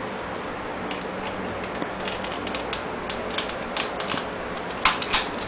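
Scattered sharp clicks and taps that grow busier over a steady hiss, with the two loudest clicks near the end: handling of the air-conditioner energy saver and its power connection as it is plugged in.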